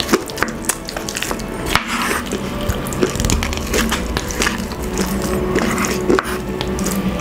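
Wooden spoon and chopsticks working into sauce-covered braised pork hock (pata tim): many small clicks of wood and wet sounds of the meat being pulled apart, over soft background music.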